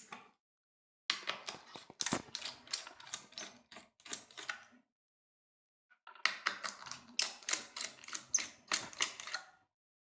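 Small screwdriver backing out the heat-sink screws over the graphics chip of a laptop, heard as rapid runs of small sharp clicks in two bursts with a short pause between.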